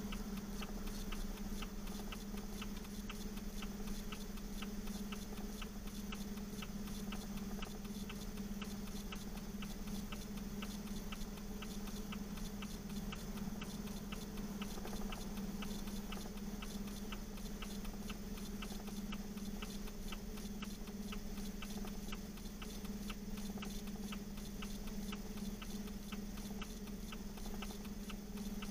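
A steady low hum with a fast, even ticking running through it.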